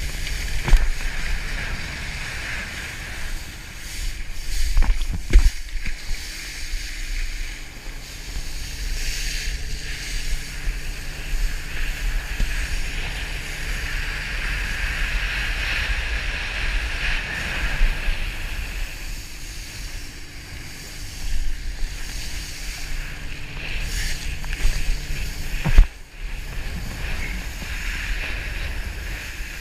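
Wind buffeting a GoPro's microphone, over the hiss of spray, as a rider is towed at speed behind a boat. A few sharp knocks break in, the loudest near the end.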